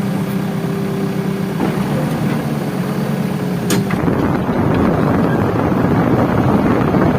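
Diesel engine of heavy earth-moving and tractor machinery running steadily, then about four seconds in giving way to a louder, rougher rumble, with a sharp click just before the change.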